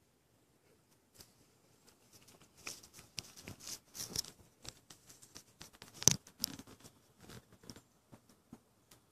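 Irregular rustling, scraping and clicking close to the microphone from the person filming moving about. It starts about a second in, is busiest in the middle with one sharp click about six seconds in, and fades near the end.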